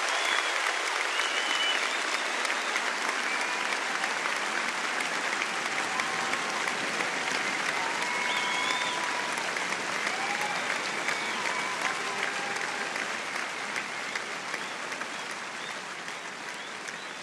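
A crowd applauding, with scattered voices calling out over the clapping. The applause slowly dies away toward the end.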